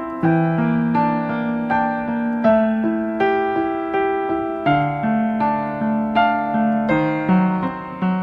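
Background music: a slow, gentle piano melody with notes struck about twice a second, each ringing and fading.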